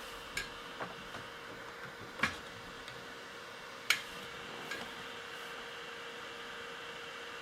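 A handful of short clicks and light knocks from cables being plugged into a Mac Mini and the unit being handled, about five in the first five seconds, over a faint steady hum.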